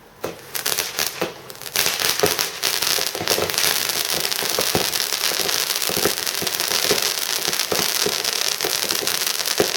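Consumer fireworks battery going off: a few sharp bangs at first, then from about two seconds in a dense, continuous crackling laced with repeated bangs.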